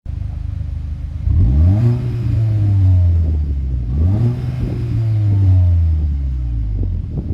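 Cupra Ateca's 2.0-litre turbocharged four-cylinder petrol engine idling, then revved twice: each rev climbs quickly and sinks slowly back toward idle, the first about a second in and the second about four seconds in.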